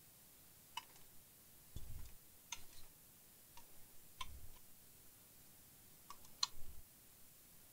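Scattered light clicks and knocks with a few soft thumps, irregularly spaced, from a TV power supply board being handled in its plastic housing and small metal parts being set down on a wooden bench; the sharpest click comes about six seconds in.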